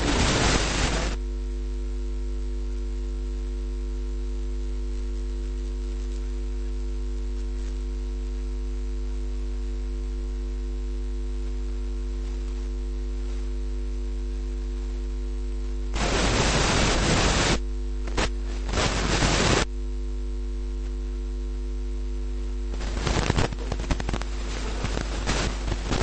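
Steady electrical mains hum with a few steady low tones, from the recording's audio chain. It is broken by loud rushing hiss about two-thirds of the way in, briefly again a couple of seconds later, and near the end.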